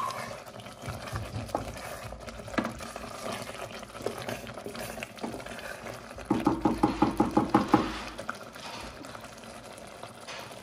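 Beef stew simmering in a pot, with faint scattered bubbling clicks. A little past the middle comes a quick rhythmic run of about ten wooden-spoon stirring strokes through the thick sauce, lasting about a second and a half.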